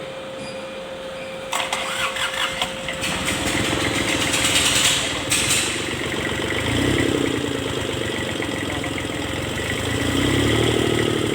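A Kubota D905 three-cylinder diesel engine that has been starting hard is cranked; it catches about a second and a half in with a rapid clatter and settles into running. It then revs up and back down twice.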